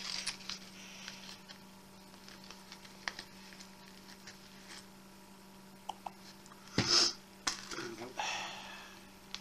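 Rustling and small clicks of a wallet being rummaged through by hand, with a louder rustle about seven seconds in.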